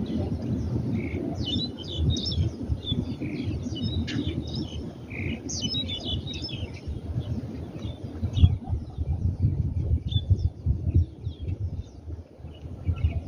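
Many small birds chirping in quick, overlapping calls, over a low rumbling background.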